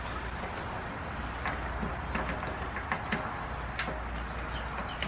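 Scattered light clicks and taps of parts being handled while the motorcycle's turn-signal wiring is put back together, over a steady low background hum; the sharpest clicks come a little after three seconds and just before four.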